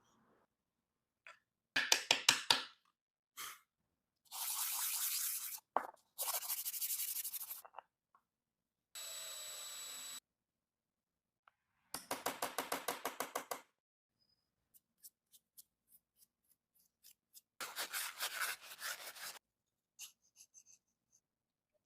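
Bursts of hand work on wood: quick, even rasping strokes a second or two at a time, in groups separated by sudden silences. One burst is a steady hiss with a faint high whine.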